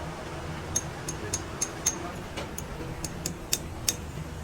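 Light, sharp metallic clicks, about a dozen at uneven intervals, as small metal tools and parts are handled during work on a truck's diesel pump, over a low steady hum.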